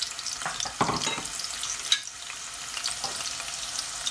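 Chopped onions frying in hot oil, a steady sizzle full of small crackles that flares up for a moment about a second in, with a sharp click near two seconds.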